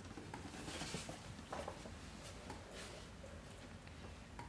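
Faint rustling and scratching with a few light clicks, like handling noise from a package or the camera.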